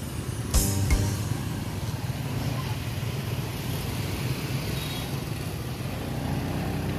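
Street traffic of motorbikes, with a steady low engine hum throughout. Two sharp knocks come close together just under a second in.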